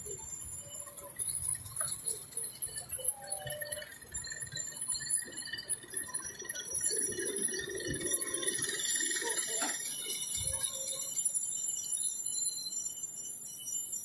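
Ride-on miniature railway train rolling along its track, with steady high-pitched ringing tones over the running noise.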